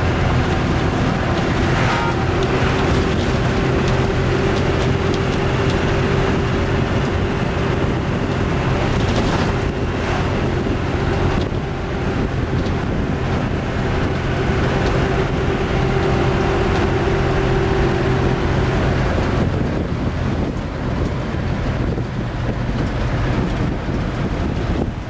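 Minibus engine and road noise heard from inside the moving cabin: a steady drone with a held hum that fades about three-quarters of the way through, and wind rushing over the microphone.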